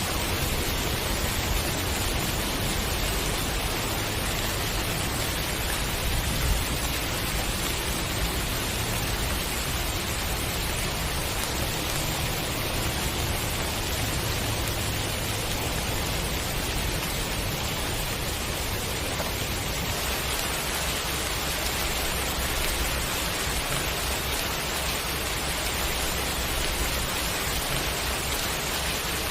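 Heavy rain falling steadily in an even hiss, with a low rumble underneath that changes about twenty seconds in.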